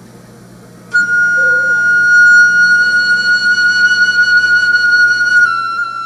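Background music: one long, steady high note on a flute-like wind instrument, coming in about a second in and stepping slightly down in pitch near the end.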